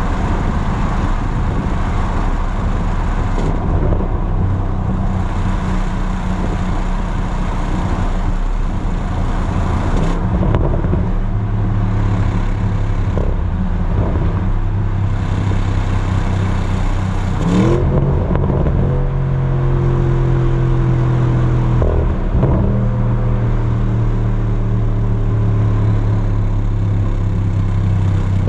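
Audi RS Q8's twin-turbo V8 exhaust, with its large resonator deleted, running steadily at highway speed over road and wind noise. A little past halfway the revs climb quickly and settle at a higher, steady pitch.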